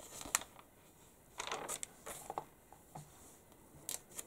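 Pages of a glossy magazine being turned by hand: a few short paper rustles and flicks with quiet gaps between them.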